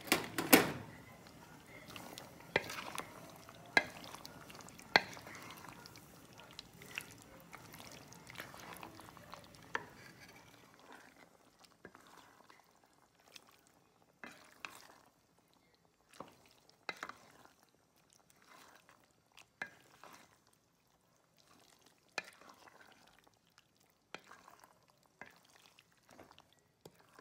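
Wooden spoon stirring a thick, creamy pasta sauce in a pot. It makes irregular clacks and scrapes against the pot's sides every second or two, the loudest one right at the start.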